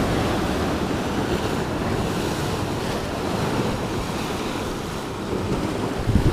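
Ocean surf breaking and washing over shoreline rocks, a steady rushing, with wind on the microphone adding a low rumble near the end.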